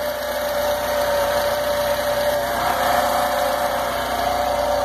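The freshly rebuilt VW EA111 1.0 four-cylinder engine of a Gol idling steadily on its first run after the rebuild, with a steady whine over it.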